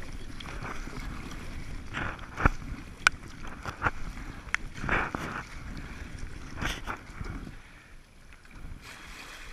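Sea kayak paddle strokes splashing through choppy water, with water slapping against the hull and a few sharp knocks. Wind buffets the microphone with a low rumble that eases near the end.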